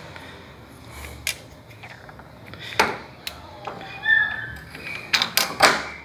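Washing machine suspension rod handled and worked by hand: a few sharp clicks and clacks from its plastic damper cup and spring on the rod, with a cluster of them near the end. The damper is the faulty part that goes loose once the load's pressure is off and lets the tub bang during spin.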